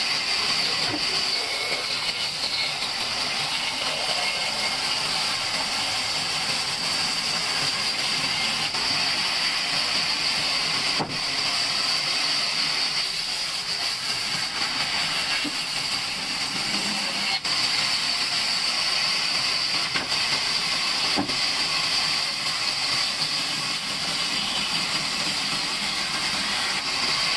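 Large wood-cutting band saw slicing through a log: a steady, high hiss that holds constant throughout.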